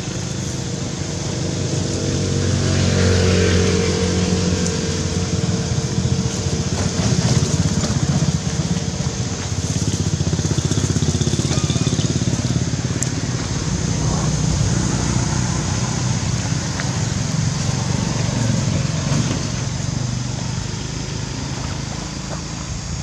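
A motor engine running, a steady low hum that swells around three to four seconds in and again near eight seconds.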